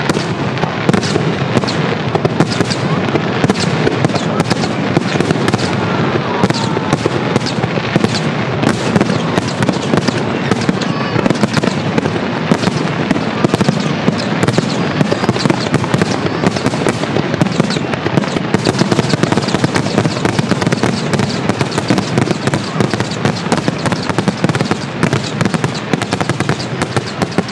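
Aerial fireworks going off in rapid, dense succession: a continuous barrage of booms and crackling bursts with no pause.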